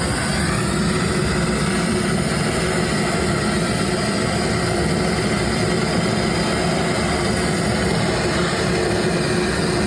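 Handheld blowtorch flame burning with a steady rushing noise while it heats copper pipe joints for soldering.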